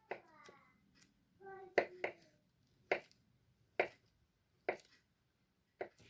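Knife cutting through food onto a cutting board in slow, even strokes, about six knocks roughly a second apart. A short squeaky sound comes near the start and another just before the second knock.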